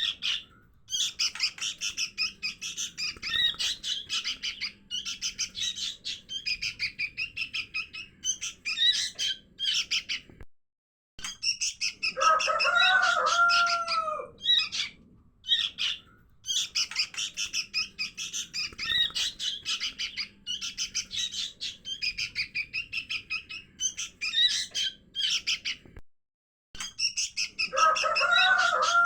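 Sooty-headed bulbul (kutilang) fledglings giving rapid, high begging chirps, played as a looped lure recording that repeats about every 15 seconds, with brief breaks between repeats. A lower, arching call joins twice, about 12 seconds in and near the end.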